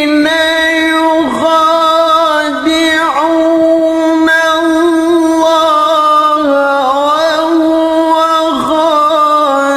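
A male qari chanting the Quran in the melodic tilawah style, holding long, high notes with ornamented turns, almost unbroken.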